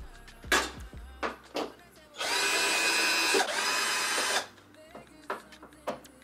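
Cordless power drill running steadily for about two seconds, driving a bolt into the back of a flat-screen TV. It comes after a few sharp knocks and clicks from handling the TV and hardware.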